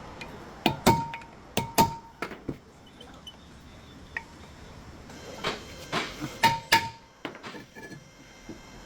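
Sharp metal-on-metal knocks with a short ring after several of them, in two clusters: a few in quick pairs about a second in, and more a few seconds later.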